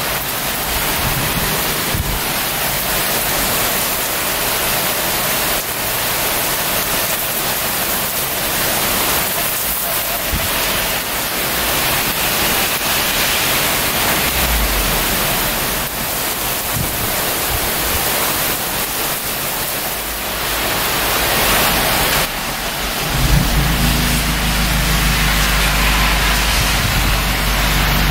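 Heavy thunderstorm rain pouring steadily. Deep thunder rumbles in briefly about halfway through and again, louder, over the last few seconds.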